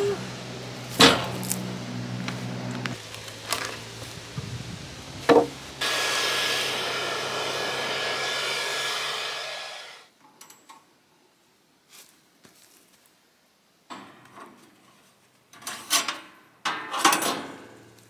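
Portable band sawmill's engine hum under several sharp knocks of cedar boards being set down, then a steady rushing noise for about four seconds. After a break come scattered metal clanks and rattles as the mill's wheel covers are opened and the band blade is taken off.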